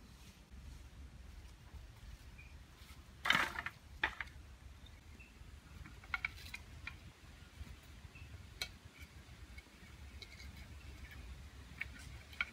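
Dry firewood sticks knocking and clattering as they are handled and laid at a small clay pot stove: a short clatter about three seconds in, then scattered single knocks.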